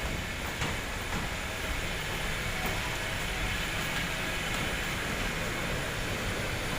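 Steady rumble and hiss of airliner boarding noise, with a few faint clicks near the start.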